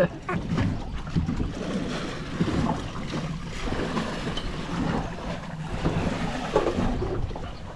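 Wind on the microphone and sea water sloshing against a small fishing boat's hull, with faint voice fragments here and there.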